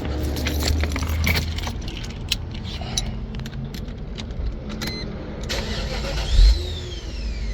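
1998 Mercedes-Benz SL500's V8 engine starting on a newly programmed key and settling to a steady idle, with the clicking and jingle of keys. A single loud thump comes about six seconds in.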